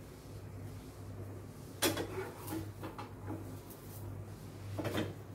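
Metal spatula clinking and scraping against a frying pan on a stove: a few sharp knocks, the loudest about two seconds in and another cluster near the end, over a steady low hum.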